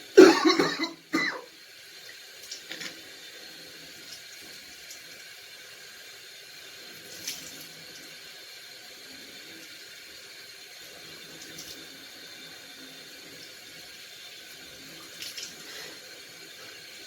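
Water running steadily from a tap into a sink. A short loud burst of sound comes in the first second or so, in two parts.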